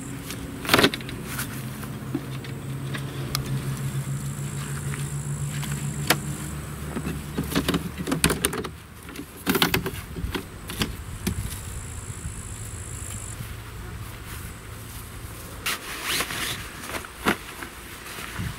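Aluminium folding camp table being opened and set on its legs: sharp metal clicks and rattles, the loudest about a second in, with more around eight to ten seconds. A low steady hum runs under the first half and stops around nine seconds, and a high thin whine comes and goes.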